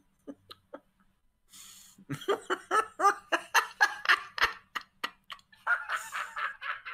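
A man laughing: a few short snickers at first, then from about two seconds in a long run of rapid laughs, about four or five a second.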